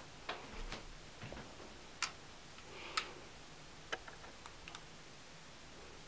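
Scattered faint clicks and taps as a small toy car is picked up and turned over in the hands, its hard parts knocking lightly, about half a dozen in the first five seconds.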